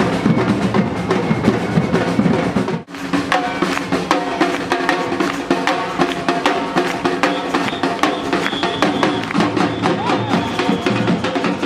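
Music with drums and held melodic notes. About three seconds in it breaks off for an instant, then music with drums carries on.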